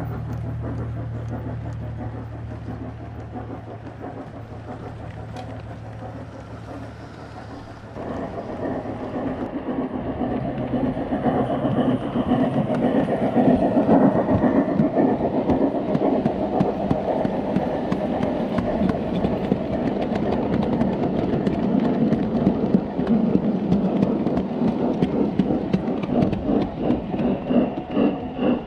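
7mm-scale model goods train running along the track: wheels rumbling and clicking over the rail joints. A steady low hum at first, then from about 8 seconds in much louder and closer, a dense rumble with rapid clicks.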